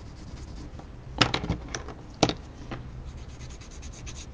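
Pencil shading strokes scratching and rubbing on a paper tile: a few separate scratches, then a run of quick short strokes, several a second, near the end.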